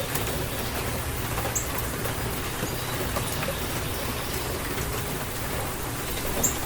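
Steady rain falling in a rainstorm, an even hiss with occasional sharp ticks of drops striking close by; the loudest tick comes a little before the end.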